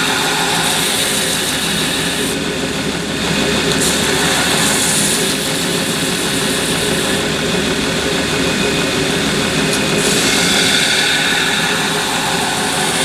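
Belt grinder running while a carbon-steel Mora knife blade is held to its coarse-grit belt, reprofiling the edge bevel. A steady motor-and-belt noise with a grinding hiss that strengthens and eases several times as the blade's contact on the belt changes.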